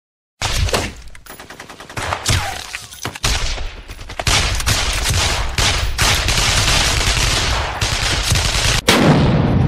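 Battle gunfire: rapid bursts of automatic machine-gun fire, thickening into dense, continuous volleys of shots, with a deep boom near the end.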